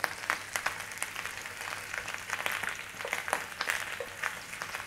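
Cumberland sausages frying in oil in a nonstick pan, a steady sizzle full of irregular sharp crackles and spits: the water has boiled off and the sausages are browning in the fat.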